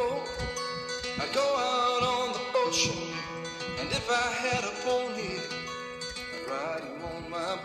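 Background music: a country-style song with guitar.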